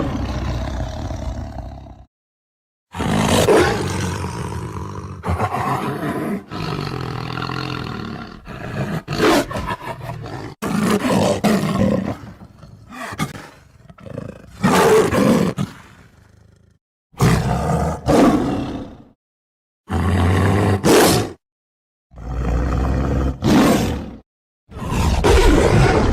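Tiger roars and growls from a sound-effect library, played one after another: about nine loud roars of one to three seconds each, some in quick pairs, each cut off by a moment of dead silence.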